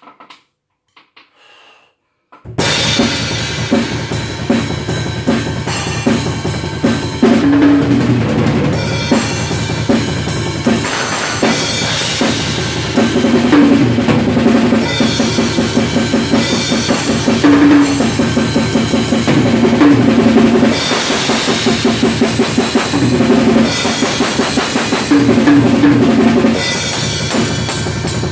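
Acoustic drum kit played fast and hard, with rapid bass drum, snare and cymbal hits in a dense, driving rhythm. It starts about two and a half seconds in, after a few faint soft sounds.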